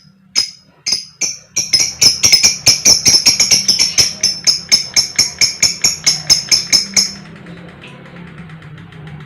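Lovebird giving sharp, repeated 'koek' calls, at first about two a second, then speeding into a fast chatter of roughly seven a second that stops abruptly about seven seconds in.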